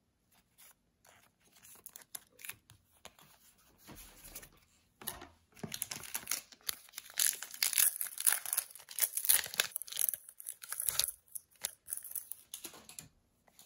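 A trading-card booster pack's foil wrapper is torn open and crinkled. The crackle is loudest in the middle of the stretch. A few light clicks of cards being set down come before it.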